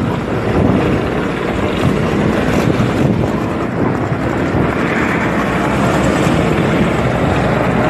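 1963 Honda Benly 125cc twin motorcycle engine running steadily on the move, with vintage scooter engines close by and wind buffeting the microphone.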